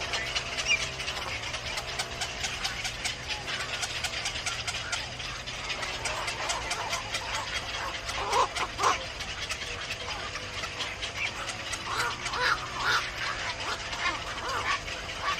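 Birds calling: short calls about halfway through and again near the end, over a dense, rapid clicking.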